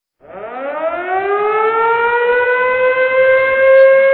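A single long wailing tone that starts suddenly about a quarter second in, rises in pitch over the first second and then holds steady and loud, like a siren.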